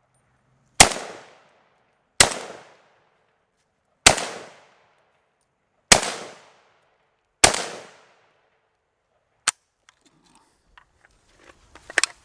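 PSA AK-47 GF4 rifle (7.62×39) fired semi-automatically: five loud shots spaced about one and a half to two seconds apart, each ringing out and fading. A quieter single crack follows, then faint clicks and handling noise near the end.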